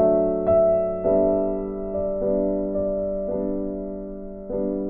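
Background piano music: slow chords struck about once a second, each left to ring and fade.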